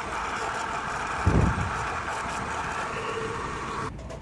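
Electric juicer-blender motor running steadily as it whips a thick milk-and-cream ice cream mixture. It cuts off suddenly near the end, since it is run in short bursts. A brief low thump about a second in.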